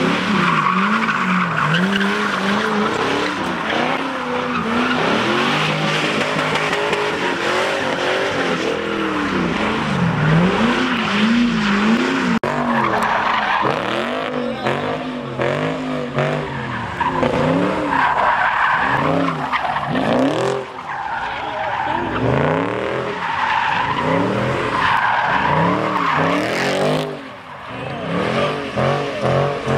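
Cars doing donuts on a dirt lot, engines revving up and down over and over under wheelspin, with the tyres skidding. The sound briefly dips near the end.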